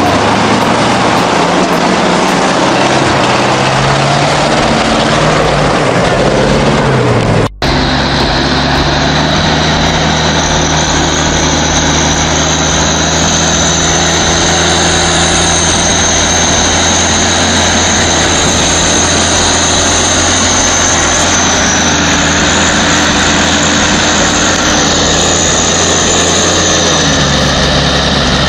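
ZIL-131 army truck's V8 engine revving up and down as it drives through deep mud. After a sudden cut about seven seconds in, a Timberjack forwarder's diesel engine runs steadily under load, with a high whine above it.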